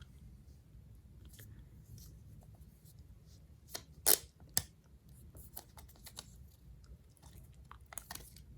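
AirPods Pro packaging being handled and opened, heard as scattered paper and plastic rustles and small clicks. The two loudest come about half a second apart, near the middle.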